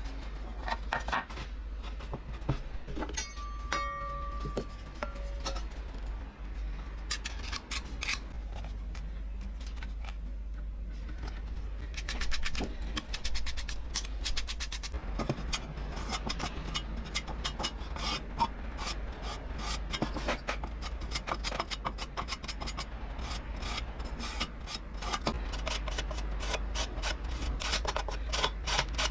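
Rapid hand rubbing and scraping strokes on metal, sparse at first and then dense and continuous from about twelve seconds in, over a steady low hum.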